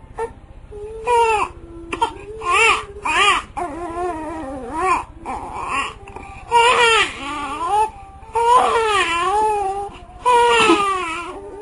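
A baby crying in repeated loud wails, with a dog crying along in a long wavering whine beneath them.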